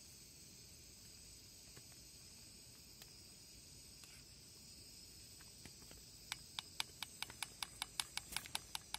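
Metal spoon stirring food in a steel camping pot. About six seconds in it starts clinking against the pot in a quick, even run of light clicks, about five a second, over a steady faint high hiss.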